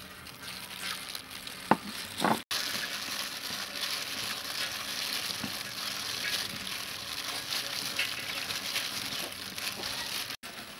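Plastic-gloved hands squeezing and kneading soft food in liquid in a stainless steel bowl: a steady wet crinkling and squishing with many small crackles, starting after a sharp tap about two seconds in and cutting off abruptly near the end.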